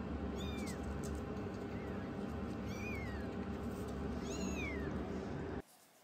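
Young kitten mewing: four short high-pitched mews, one faint, each arching or falling in pitch, over a steady low hum that cuts off abruptly near the end.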